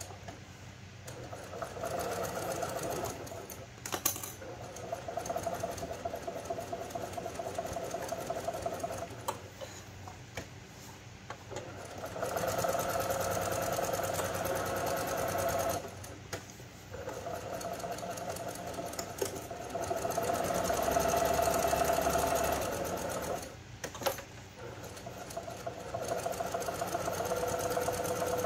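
Brother PQ1500 straight-stitch sewing machine stitching through the layered edge of a cloth pad. It runs in stretches of a few seconds with short pauses between them, and there are sharp clicks about four seconds in and again a little before the end.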